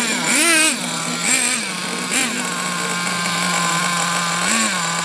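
Small two-stroke nitro (glow-fuel) engine of a radio-controlled truck idling steadily, with a few brief rises and falls in pitch.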